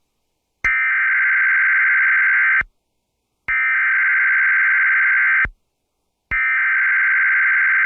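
Emergency Alert System SAME header: three bursts of rapid two-tone digital data warble, each about two seconds long with about a second of silence between them. The header carries the coded alert, here a Severe Thunderstorm Watch.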